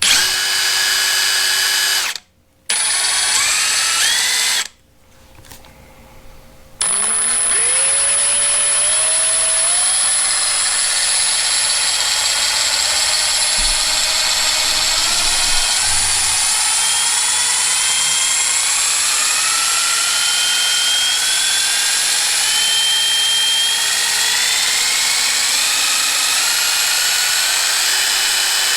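Milwaukee M18 Fuel 2861-20 1/2-inch mid-torque impact wrench running free with no load in mode 2, its motor whining. There are two short trigger pulls, then one long pull in which the pitch climbs in many small steps as the variable-speed trigger is squeezed further, until the tool finally maxes out.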